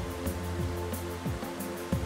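Background music: held chords over a regular beat of short bass notes and high ticks.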